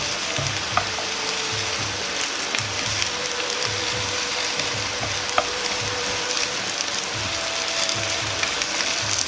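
Cabbage and carrot frying gently in a frying pan over low heat: a steady sizzle, with a few light clicks as wooden chopsticks stir the vegetables against the pan.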